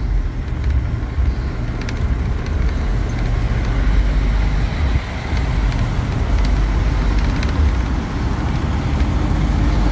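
Steady low engine drone and road noise, heard from inside a vehicle rolling slowly along the street.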